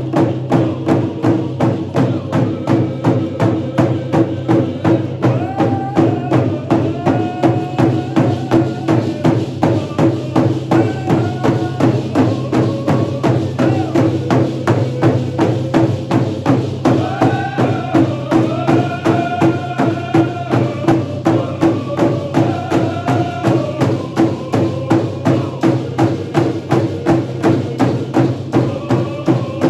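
Many hand-held frame drums beaten together in a steady, even beat of about two strikes a second. A group of voices sings a song over the drums from about six seconds in.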